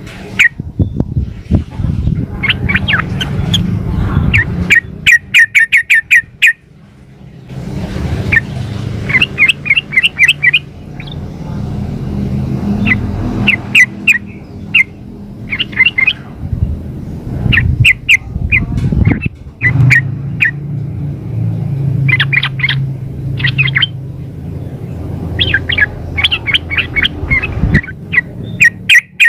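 Yellow-vented bulbul (trucukan) calling in quick bursts of short chattering notes, repeated every second or two. This is a female's call, used as a lure to make males answer. A low steady rumble runs underneath.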